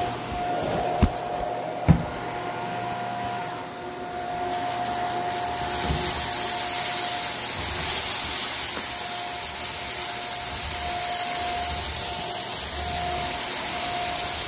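Shark Apex upright vacuum cleaner running, picking up rock salt, its motor holding a steady whine under the rush of air. Two sharp knocks come about one and two seconds in, and the airflow hiss grows louder from about five seconds in.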